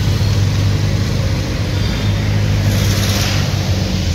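Motorcycle engines running close by in slow street traffic: a steady low drone, with a brief hiss about three seconds in.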